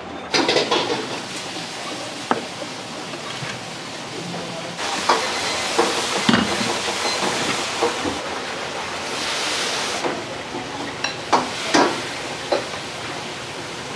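Restaurant kitchen at work: a steady sizzling hiss of cooking, with sharp clinks and knocks of metal bowls and utensils. The hiss swells for a few seconds midway.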